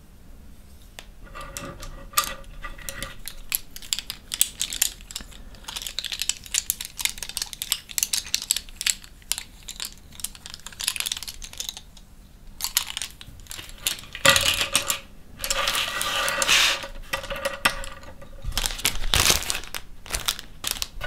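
A handful of wooden-handled paintbrushes clicking and rattling together as they are handled, then rolled and rubbed on a tabletop under the palm, with a louder stretch of rolling near the end.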